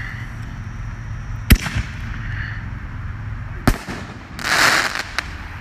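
Consumer aerial firework shells going off: a sharp bang about a second and a half in, the loudest, followed by a couple of small pops, a second bang near four seconds, then a short crackling hiss lasting about half a second.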